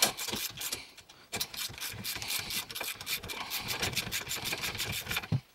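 Hand ratchet clicking in quick, even runs as it spins the 18 mm nut off a lower ball joint stud.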